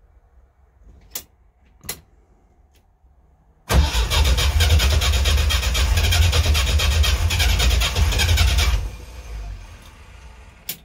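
UAZ 469's starter cranking the engine for about five seconds without it catching, then cutting off, after two clicks of the ignition key; the engine is getting no fuel.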